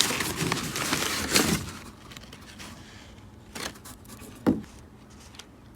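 Packaging rustling and crinkling as hands dig into a shipping box. It is loud for about the first second and a half, then drops to quiet handling with a couple of light knocks.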